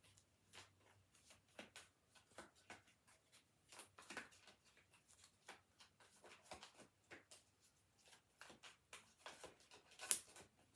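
A deck of tarot cards being shuffled by hand, overhand: a quiet, irregular run of soft card flicks and taps, with one sharper snap near the end.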